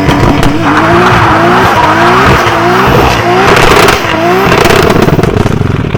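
Car engine revving hard in repeated rising surges, the pitch climbing again and again over loud tyre noise, as when a car is driven at speed or drifted.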